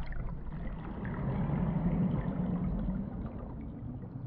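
A passage of an acousmatic sound composition played back: a dense, low, water-like noise that swells toward the middle and then eases off.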